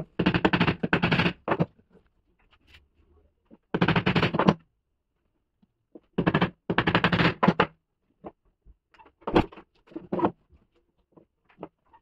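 Three bursts of rapid, machine-gun-like tapping, each a second or so long, then scattered light clicks and knocks: a hammer driving the nails of small plastic cable clips into the board to fix the wiring, then wires and hand tools being handled.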